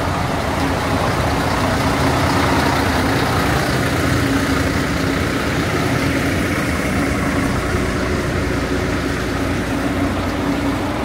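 Motor vehicle engine running steadily: a constant drone with an even hum and no change in pace.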